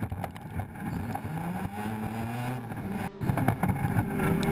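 Short-course off-road race truck engines at full throttle off the start, the engine note rising, heard from an onboard camera. There is a brief drop-out a little past three seconds in, and the engine sound is louder after it.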